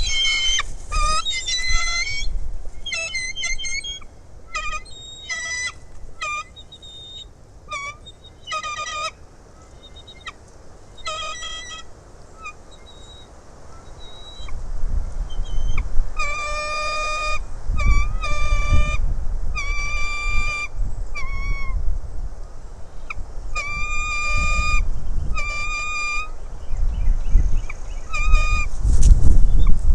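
Bald eagles calling in runs of short, high, chittering notes. The runs are fainter through the middle and strongest in the second half, with low rumbling swells beneath, loudest near the end.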